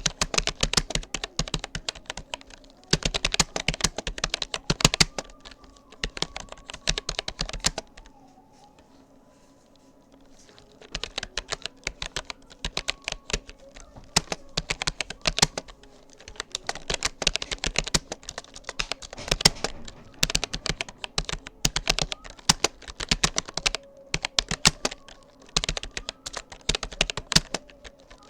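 Typing on a Rapoo computer keyboard: rapid runs of key clicks in bursts, with a pause of about three seconds partway through before the typing resumes.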